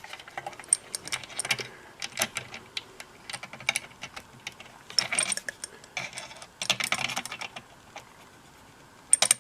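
Adjustable crescent wrench clicking and scraping against a painted metal radio chassis while tightening potentiometer mounting nuts: irregular metal clicks, with a few longer rasping scrapes about halfway through and a sharp clatter near the end.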